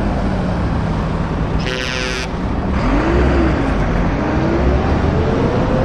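Heavy lorry diesel engines running as the trucks pull away, with one short horn blast about two seconds in. After the horn, an engine's pitch rises and falls as it revs.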